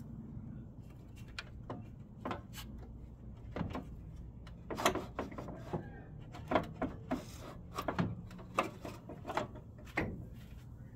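Irregular light clicks and knocks of plastic and aluminium as a replacement radiator is handled and worked into its mounts. Some strokes come close together, the sharpest in the second half.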